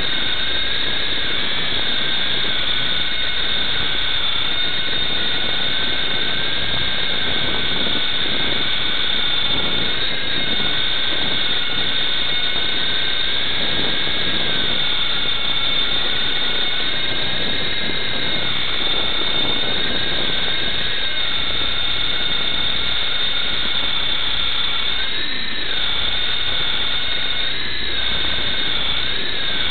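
Blade MD520 RC helicopter's electric motor and rotor whining steadily in flight, its high tones wavering up and down with throttle, the pitch dipping and rising more in the last few seconds.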